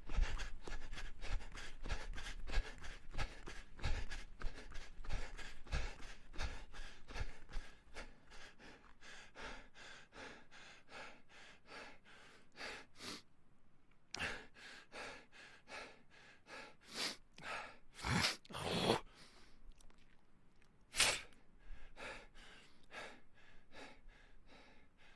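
A person running with quick, regular footfalls and panting breaths. About eight seconds in, the steps fade and a few louder, drawn-out gasping breaths follow, as of someone catching their breath after the run.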